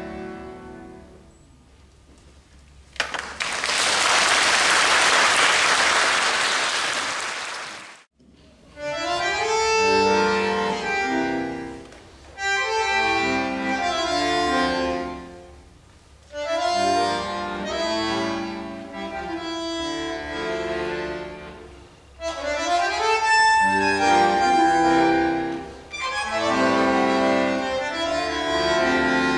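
The last chord of a violin, piano and bandoneon trio fades out, followed by about five seconds of audience applause that cuts off abruptly. Then a bandoneon plays alone in phrases of a few seconds each, opening the next piece.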